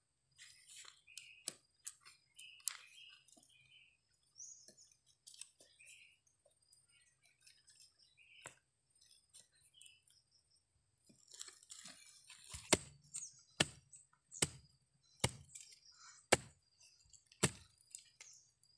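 Machete blade chopping and scraping into soil and roots around a shrub's root ball as the tree is cut out of the ground: light scrapes and small cracks at first, then about six sharp chops a little under a second apart in the second half. Birds chirp faintly in the first half.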